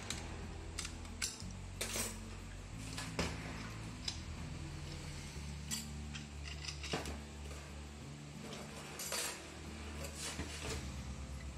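Steel clutch plates and a snap ring clinking and scraping against an automatic transmission clutch drum as they are pried loose and lifted out, in a dozen or so sharp, irregular metal clicks.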